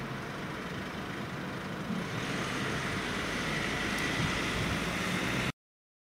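Road traffic noise: a steady rumble of vehicles moving along a street, growing a little louder about two seconds in and cutting off suddenly near the end.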